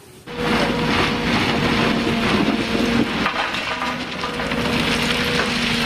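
Wheeled road-rail excavator working in railway track ballast: its engine hums steadily under the crunching and rattling of stones in the bucket. It starts suddenly, about a third of a second in.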